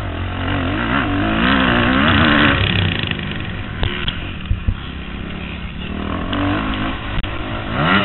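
Kawasaki KX250F four-stroke single-cylinder motocross engine revving hard, heard close up from the onboard camera. The engine note rises and falls about a second in, settles, then climbs again near the end as the bike drives out onto the straight.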